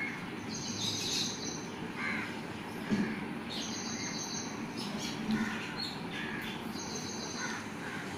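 Birds calling now and then, with a high call of just under a second about every three seconds and shorter chirps between, over a steady low background rumble.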